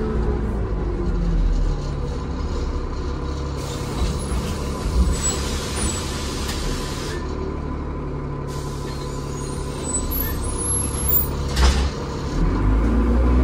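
Transbus Trident double-decker bus heard from inside the passenger saloon. It slows with its engine and drive whine falling, then idles with two long spells of air hissing typical of the air brakes, and near the end pulls away with the whine rising and the engine getting louder.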